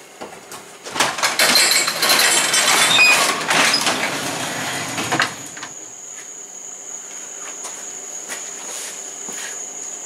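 A sectional garage door being raised, rattling and clattering along its tracks for about four seconds, then stopping. After it, crickets chirping in a steady high-pitched drone.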